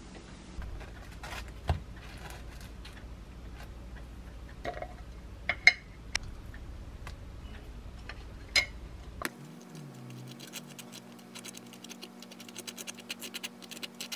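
A few scattered sharp clicks and knocks of kitchen handling. Then, about two-thirds of the way in, a table knife starts scraping across toasted bread in quick, scratchy strokes as it spreads wholegrain mustard.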